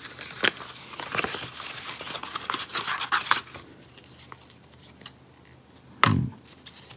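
Paper cards and a thin cardboard box rustling and scraping with small taps as the warranty card and leaflets are handled and pulled out, busiest in the first half. About six seconds in, a person gives a short murmured 'hm'.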